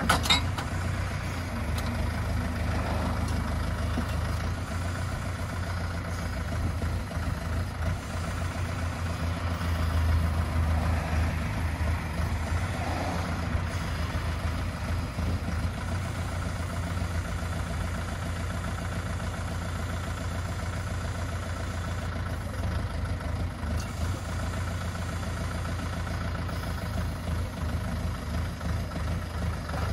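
Compact tractor engine running steadily, driving a side-mounted flail slope mower, with a short sharp knock right at the start.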